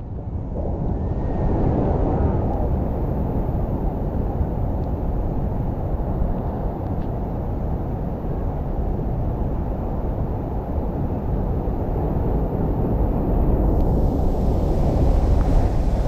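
Heavy surf against a lava-rock coastline: a steady, deep rumble of large waves, with wind on the microphone.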